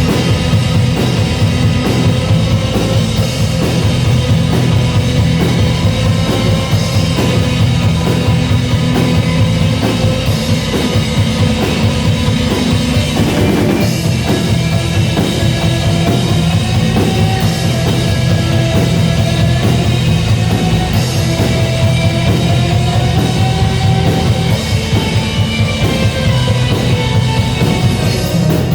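A rock band playing live: drum kit keeping a steady beat under a dense band sound. About halfway in, a melody line comes in on top.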